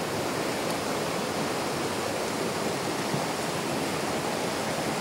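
Mountain stream flowing and rushing steadily over rocks, an even, unbroken water noise.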